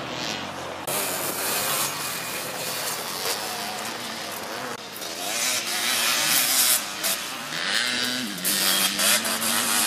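Three-wheeler ATC engines racing on a dirt motocross track, a buzzy, rasping engine note that rises and falls as riders work the throttle. Late on, one engine's pitch climbs and then holds.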